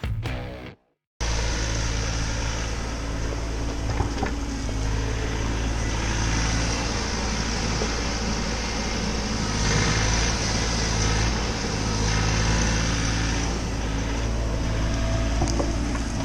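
Music cuts off within the first second. After a moment of silence, a Bobcat mini-excavator's diesel engine runs steadily with an even low hum, with faint scrapes and knocks here and there.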